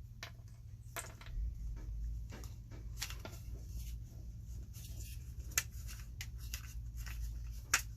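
Scattered light clicks and taps, irregularly spaced, of small parts and hand tools being handled while a small air compressor is taken apart, over a steady low hum.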